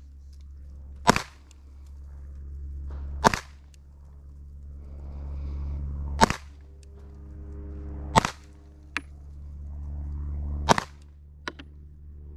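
Handgun fired in deliberate slow fire: five sharp shots, two to three seconds apart, each with a short ring-out.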